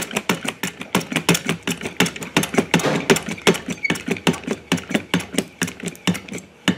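Hand-operated hydraulic pump being worked with quick strokes of its lever, giving a rapid, regular clicking of about six clicks a second. The pumping is taking up the slack in the hoses and cylinders before pressure builds.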